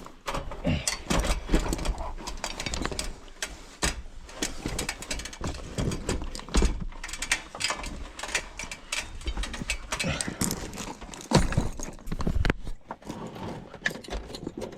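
Irregular thumps, knocks and clicks of a person climbing up into an attic and moving about, with handling noise.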